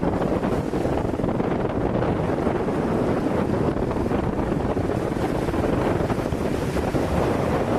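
Strong wind of about 25-30 knots buffeting the microphone in a steady low rumble, with choppy waves washing and splashing.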